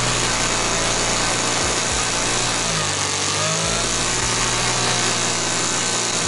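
Toyan FS-S100G miniature four-stroke nitro engine being restarted after stalling, spun by its belt-driven electric starter, with a steady, even mechanical whir.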